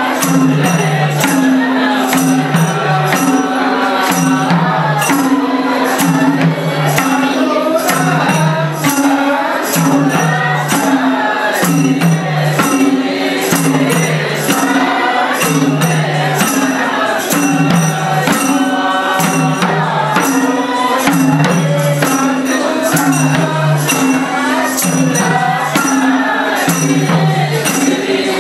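Sorathi folk song performed live: men's voices singing over a steady beat from hand drums and jingling tambourine-like frame drums.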